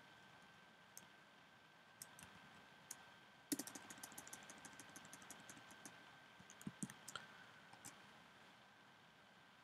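Computer keyboard keystrokes: a few scattered key taps, then a quick run of typing about three and a half seconds in lasting two or three seconds, then a few more taps, over a faint steady high whine.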